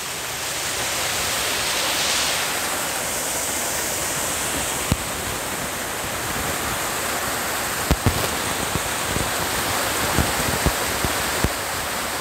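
Waterfall and stream water rushing steadily. A few short, sharp clicks come in about five seconds in and again in the second half.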